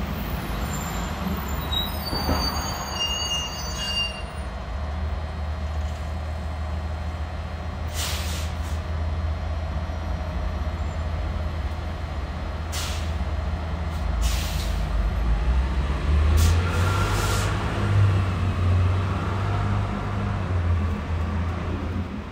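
Street traffic: a steady low rumble of passing vehicles, with a few high squeaks in the first few seconds and several short hisses in the middle.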